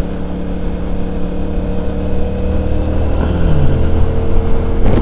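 CFMoto 450 CL-C's parallel-twin engine running steadily as the motorcycle cruises along the road.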